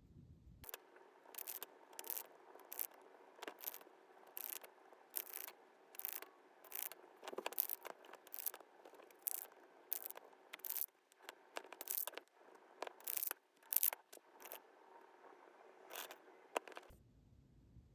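A small hand tool scraping polymer clay in a long series of short, irregular strokes, roughly one or two a second. The strokes start about a second in and stop shortly before the end.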